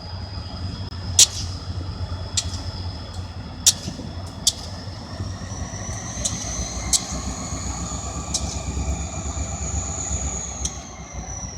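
Freight train with diesel locomotives moving slowly: a steady low engine rumble, irregular sharp clanks of wheels and couplers, and a thin high whine that slowly rises and falls in pitch.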